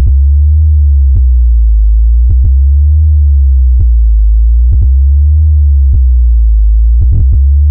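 Electronic bass-test music: a very loud, sustained deep sub-bass tone whose upper overtones slowly rise and fall, punctuated by short, sharp kick hits.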